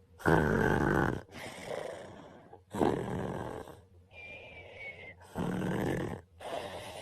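A man snoring in his sleep: three loud snoring breaths about two and a half seconds apart, each followed by a softer breathy exhale, one of which carries a thin whistle.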